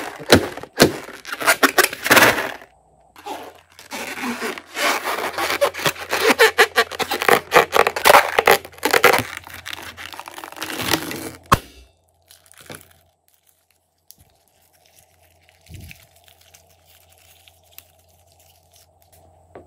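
Hands rubbing and squeezing a rubber balloon, with dense crackling squeaks that stop about eleven seconds in. Only a few faint handling sounds follow.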